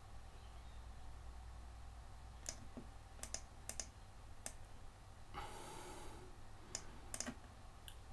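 Faint, scattered computer mouse clicks, some in quick pairs, with a breath out about midway.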